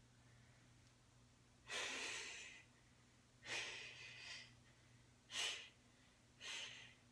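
A man breathing hard through the strain of flexing into and holding a bodybuilding pose: four loud breaths, the first two long and the last two short and sharp.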